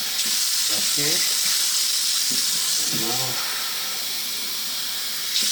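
Cold tap water running with a steady hiss as cups of water are filled for the tea pot. A faint voice is heard twice.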